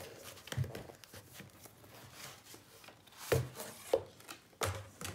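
A rigid Aquabord hardboard panel and a paper block being handled and lifted out of a cardboard box: four dull knocks of board against board and cardboard, with sliding and rubbing in between.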